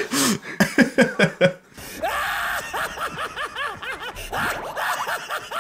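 Two men laughing, then from about two seconds in an animated character's long, rhythmic laughter from the anime's soundtrack.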